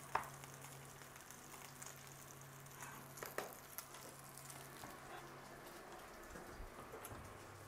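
Faint sizzle of hot fat left in a frying pan on the hob, with a low steady hum that stops about five seconds in.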